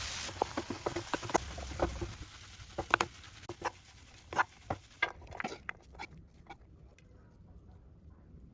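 Irregular taps and clinks of a cooking utensil against cookware, a dozen or more sharp knocks spaced unevenly, growing sparser and fainter over the last few seconds.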